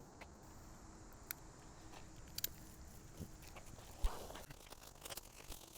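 Faint scattered taps and light knocks with one louder thump about four seconds in, from taking the fabric cover off the car.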